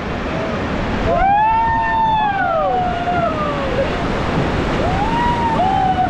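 Whitewater rapids rushing loudly around an inflatable raft, with rafters whooping in long rising-and-falling yells: one starting about a second in and lasting a few seconds, another near the end.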